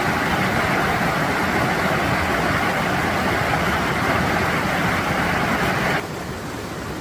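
Mountain stream water rushing steadily over rocks. About six seconds in it drops suddenly to a quieter, thinner rush.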